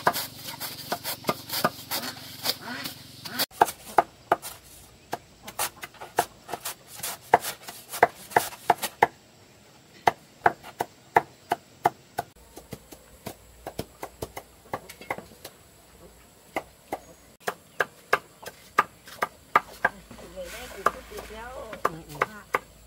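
Chopping with a blade on a wooden board: a long run of sharp knocks, about three a second at first and sparser after a brief pause about nine seconds in.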